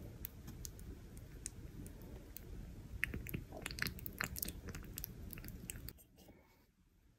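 Olive oil pouring from a bottle into a glass jar of fresh basil leaves: a low steady rush with scattered small clicks and crackles, busiest about three to five seconds in. It drops away suddenly about six seconds in.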